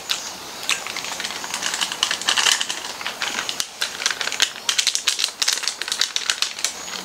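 Small MILO Nuggets chocolate balls pouring and trickling from a foil snack packet into a cupped hand, a quick irregular patter of tiny clicks mixed with the packet crinkling as it is tipped and tapped.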